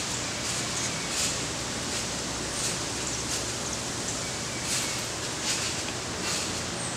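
Steady rustling of leaves in the tree canopy, with faint brief high-pitched sounds now and then.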